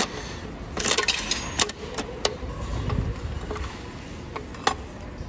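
Chrome coin mechanism of a two-quarter capsule vending machine being turned by hand: an irregular series of sharp metal clicks and clunks, as the turn dispenses a prize capsule.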